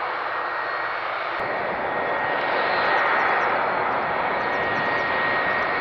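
Airbus A380 jet engines running at taxi power: a steady rush of jet noise with a thin, high, steady whine over it, growing a little louder towards the middle.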